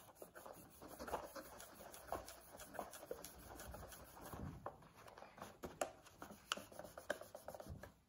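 Cloth rubbing polishing compound over the plastic cassette door of a personal cassette player: a faint, irregular scratchy rubbing with many small clicks and taps.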